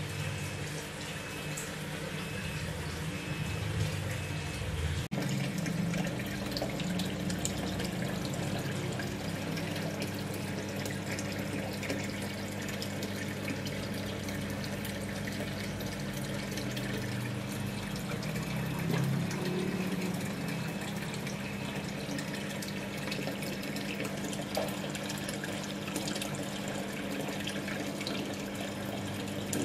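Aquarium filter water running and splashing steadily into the tank, with a steady low hum from the pump.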